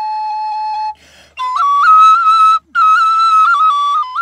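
Kaval, a wooden end-blown shepherd's flute, playing a folk melody. A long held note gives way about a second in to a short breathy gap. Then a higher passage follows with quick little ornaments, broken once by a brief pause.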